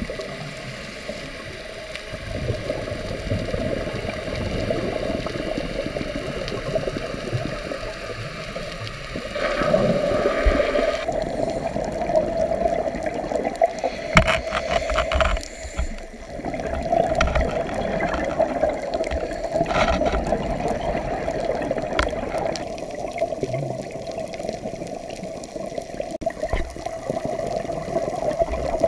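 Muffled underwater sound heard through a dive camera's housing: a steady rush of water with swells of bubbling from scuba divers' exhaled air, loudest about ten and fifteen seconds in, with a cluster of clicks around fifteen seconds.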